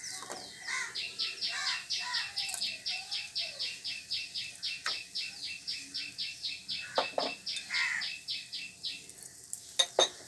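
A bird calling a fast, steady run of short high chirps, about five a second, starting about a second in and stopping shortly before the end. A few light knocks from the pan and spatula sound over it.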